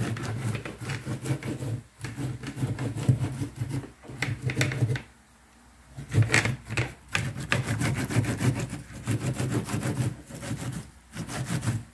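Fresh corn cob scraped back and forth over a flat metal grater, a rhythmic rasping of kernels being grated off the cob, with a short pause about five seconds in.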